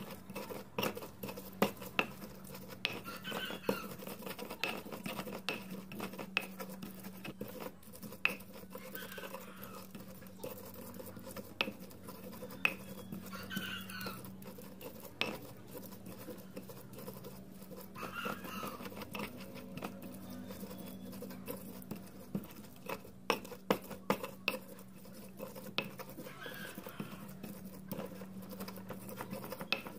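Stone pestle (ulekan) grinding and scraping chili, shallot and garlic paste in a volcanic-stone cobek mortar, with irregular clicks and taps of stone on stone as the paste is worked smooth. A steady low hum runs underneath.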